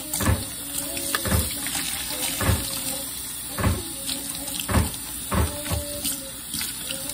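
Water running from a tap into a stainless steel sink while a wet polyester shirt is scrubbed and wrung by hand in soapy water, with a low splash or slosh about once a second as the fabric is worked.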